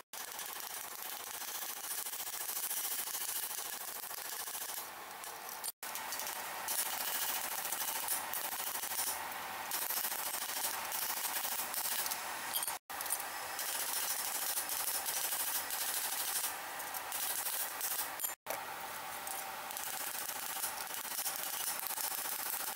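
Rapid hammer blows on a steel gauntlet plate being shaped over an anvil horn, a quick run of metal-on-metal strikes.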